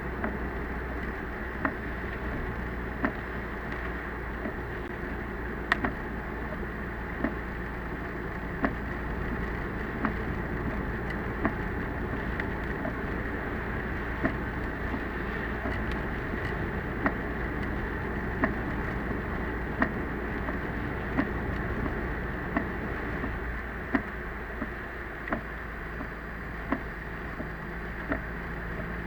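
Steady car cabin noise from a moving car in typhoon weather, recorded through a dashcam. A sharp click sounds about every second and a half, coming about twice as often near the end.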